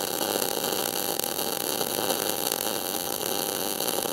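MIG welding arc running steadily, a continuous even hiss and crackle, as a bead is pulled along the seam of a clamped wrought-iron and steel billet. The welder is set to about 21 volts with .035 wire.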